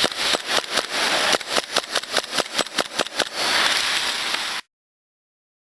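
Airsoft guns firing, a rapid string of sharp cracks about six a second over a steady hiss, cut off abruptly near the end.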